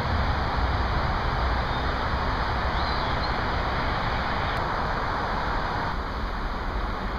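Steady rushing outdoor background noise, even and heaviest in the low end, with a faint high chirp about three seconds in.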